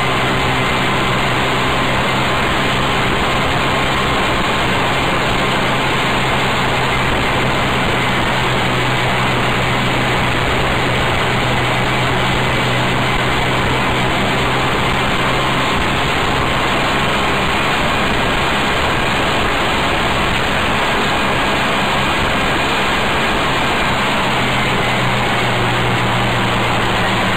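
Adly GK125R buggy's small 8-horsepower engine running steadily under way, heard from a frame-mounted camera beside the front wheel, mixed with constant wind and road noise.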